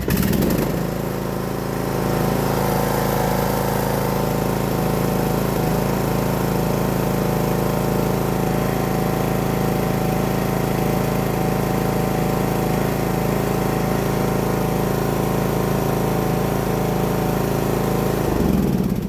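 Briggs & Stratton 17.5 hp riding-mower engine running steadily, warming up before an oil change; it shuts off near the end and runs down.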